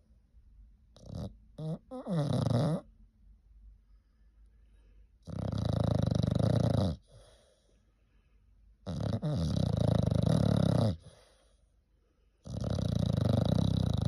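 English bulldog snoring loudly: four long snores about three and a half seconds apart, each lasting one and a half to two seconds, the first led in by a few short catches of breath.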